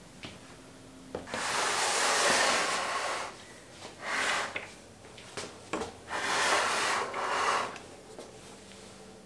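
A small wooden workbench handled on a wooden floor: three stretches of wood scraping and rubbing, with a few light knocks between them.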